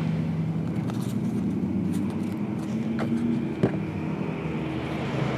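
Steady low background hum with a few light taps and clicks as cards and a small cardboard card box are handled on a table; the sharpest tap comes a little past the middle.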